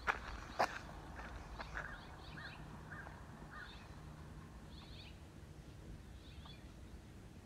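Small birds chirping in short, repeated calls against quiet outdoor background noise, with two sharp clicks in the first second.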